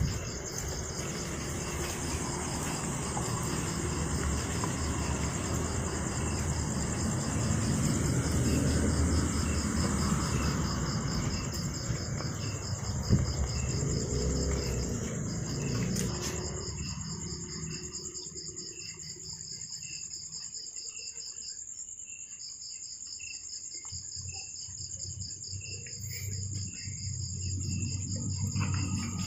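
Crickets chirping in steady, rapid pulsing trills at two high pitches at once. Low rustling noise sits under them for about the first half, then fades, leaving the insects nearly alone.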